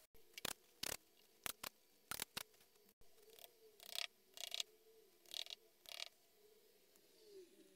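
About a dozen faint, irregular light taps and knocks of a small hammer tapping metal letter stencils down into moulding sand.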